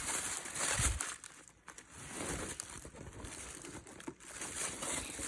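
Packaging crinkling and rustling as it is handled, loudest in the first second, then softer.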